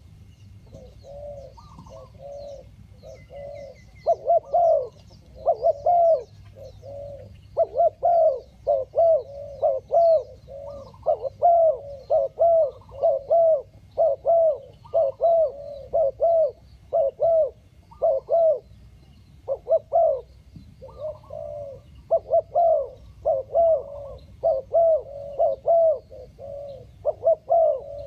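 Spotted dove cooing over and over, its short hollow notes grouped into repeated phrases with only brief pauses between them.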